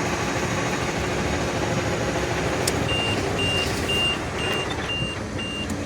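Volkswagen Constellation 19.320 truck's diesel engine idling steadily, the engine noise it had now cured ('zerado'). About three seconds in, a high electronic beep sounds six times, about two a second.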